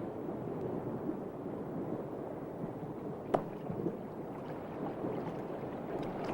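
Steady low rushing of water, with one sharp click about three seconds in and a few faint ticks after it.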